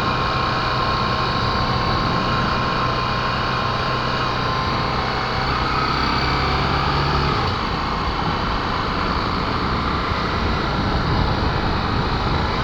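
Honda XR250 Tornado's single-cylinder four-stroke engine running steadily while riding. The low engine note changes about halfway through.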